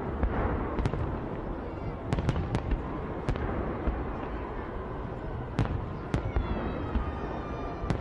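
Fireworks salute exploding: a string of sharp bangs, four in quick succession about two seconds in and more spaced out later, over a continuous low rumble.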